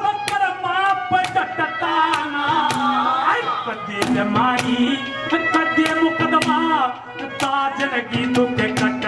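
A male voice singing a Haryanvi ragni live into a microphone, with long bending held notes, over steady hand-drum strokes.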